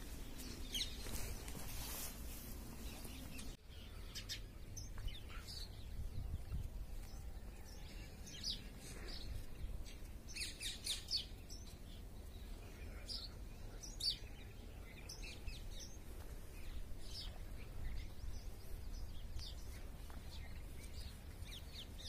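Birds chirping, with short scattered calls throughout, over a faint low steady rumble.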